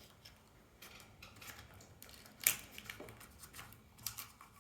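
Faint, scattered clicks and light taps of small doorbell mounting hardware and packaging being handled and set down, with a louder tap about halfway through and a few quick taps near the end.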